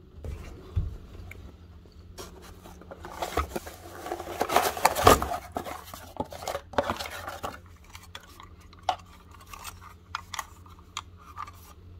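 Handling noise from a zone valve actuator and its cardboard box: scattered clicks and clatter, with a denser stretch of rustling and knocking in the middle, over a steady low hum.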